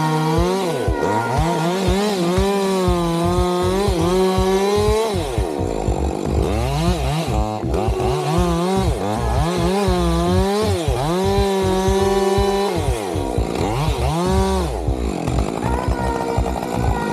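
Chainsaw running and cutting wood, its engine pitch repeatedly dipping under load and rising again as it revs.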